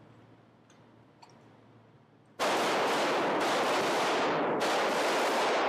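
Several M9 Beretta 9 mm pistols firing at once on an indoor range. The fire starts suddenly about two and a half seconds in, and the shots overlap into one dense, continuous stretch of echoing gunfire.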